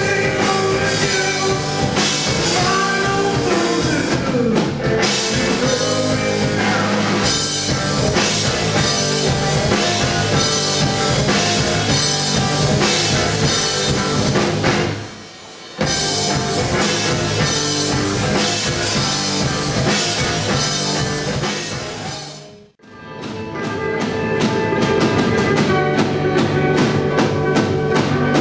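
Live rock band playing: electric guitars, bass and a drum kit. The music drops out briefly about halfway through, and dies away to nothing and comes back a few seconds before the end.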